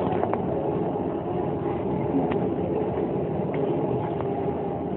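Steady murmur of a seated crowd, many people moving and talking at once with no clear words, with a few faint clicks.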